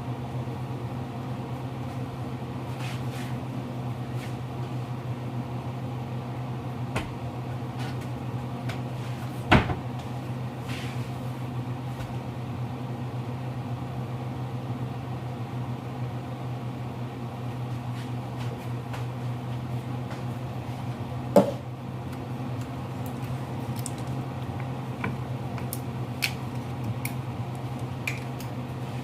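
Steady low hum of a kitchen appliance motor, broken by a few sharp knocks, two of them louder, about ten and twenty-one seconds in.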